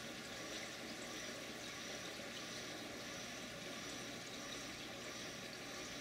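Steady sound of water circulating in a reef aquarium, with a faint steady hum underneath.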